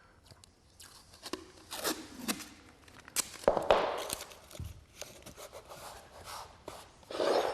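Tape being pulled off a roll and torn in several short rips, with small clicks and scrapes of handling.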